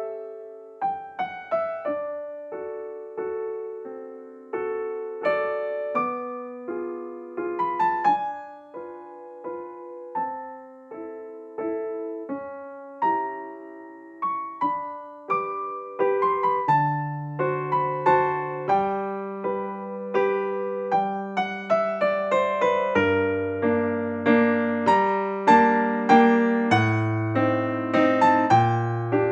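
Background music on solo piano: a gentle melody of struck notes that each ring and fade, with a lower bass line joining about halfway through.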